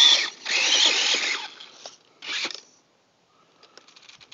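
Electric motor of a Redcat Volcano EPX Pro RC truck whining in three short bursts of throttle, its pitch rising and falling with each burst. The bursts stop a little over halfway through, leaving faint ticking and rattling near the end.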